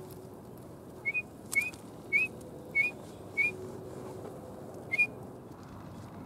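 Drake teal calling in flight: six short, rising whistled notes, most about half a second apart and the last after a pause, which the hunter names male garganey.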